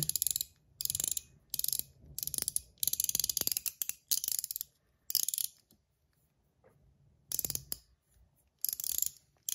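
Gao Studios Chiz mechanical fidget ring being rotated by hand: its outer band turns on the stainless steel core over ball-and-spring detents, giving short bursts of rapid ratchet-like clicking. The clicking pauses for about a second and a half past the middle.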